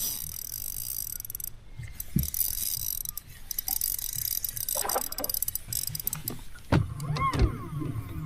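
Fishing reel whirring in two bursts as line runs on the spinning spool, followed by a few knocks and bumps from handling the rod and reel near the end.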